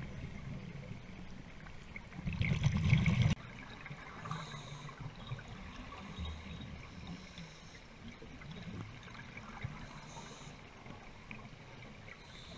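Scuba diver's regulator breathing underwater: a loud rush of exhaled bubbles about two seconds in, and a hiss of inhaling recurring every few seconds over a low rumble of water.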